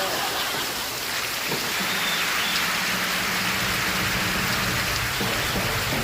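Steady rain falling, a dense even hiss. Faint tones from a television show playing in the background come in underneath about two seconds in and thicken toward music near the end.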